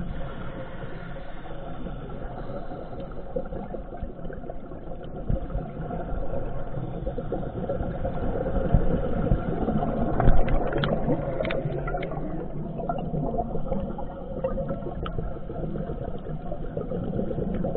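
Muffled underwater sound through a camera housing: a steady low rumble with scuba divers' exhaled bubbles, louder between about eight and twelve seconds in, with a few sharp clicks.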